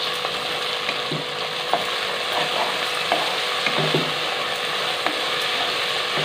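Sliced onions, mint leaves and green chillies sizzling steadily in hot oil and ghee in an aluminium pot, with a spatula scraping through them and knocking against the pot now and then as they are stirred.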